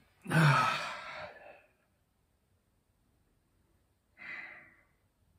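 A man's heavy sigh of disappointment, loud at the start and trailing off over about a second and a half. It is followed by a shorter, softer breath out about four seconds in.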